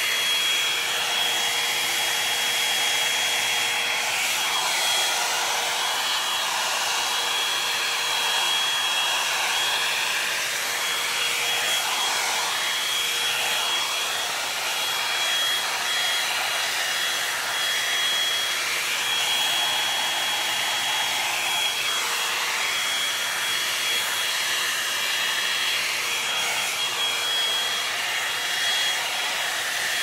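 Revlon One-Step Volumizer hot-air brush running steadily: a rush of blown air with a high, steady whine over it. The sound shifts slightly now and then.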